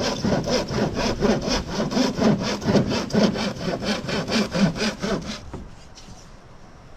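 Hand saw cutting wood in quick, even back-and-forth strokes, about four a second. The sawing stops about five and a half seconds in.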